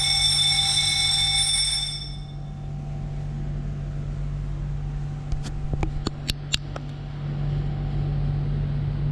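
Fire alarm sounder giving a steady, shrill electronic tone during a system test, which stops about two seconds in. A steady low hum continues, and a few sharp clicks come near the middle.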